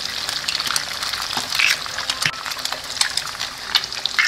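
Eggs and strips of canned ham frying in hot oil in a pan: a steady sizzle with many small crackling pops and a few louder spits.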